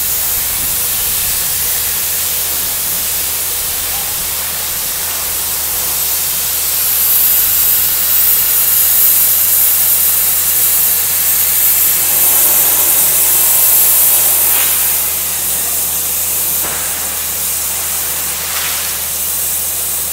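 Steady hissing rush of compressed air blowing water and mud up out of a borewell during air-compressor cleaning, louder through the middle.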